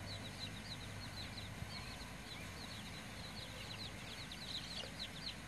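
Small birds chirping steadily: short, high, falling chirps, several a second and overlapping, growing thicker near the end.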